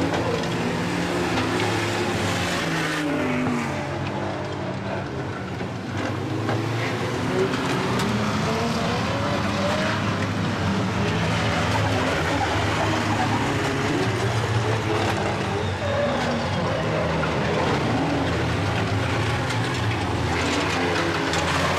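Several banger-racing vans' engines revving hard around an oval track, with more than one engine note rising and falling at once over a steady rumble.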